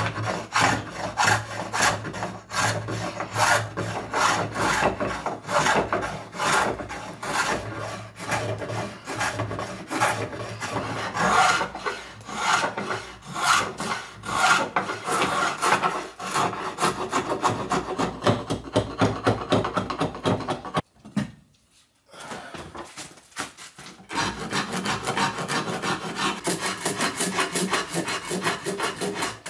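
A spokeshave shaving down a wooden axe handle in quick, repeated scraping strokes as the handle is roughed out to shape, with a short break about two-thirds of the way through.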